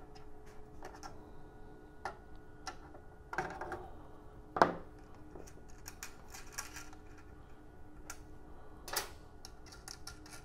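Scattered small metallic clicks and ticks as the coaxial loop jumpers and their threaded connectors are loosened and lifted off the front panel of a vector network analyzer. A sharper click comes about four and a half seconds in and another about nine seconds in, over a faint steady hum.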